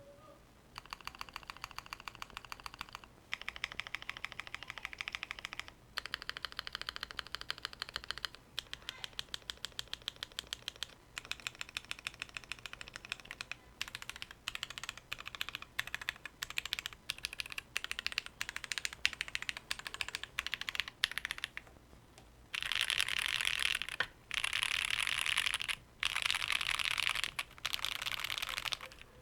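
Mechanical keyboard with lubed and filmed JWK Alpaca linear switches, a POM plate and GMK ABS keycaps: runs of rapid, even keystrokes. About 22 seconds in come four louder bursts of fast rolling strokes across the asdfjkl; home-row keys.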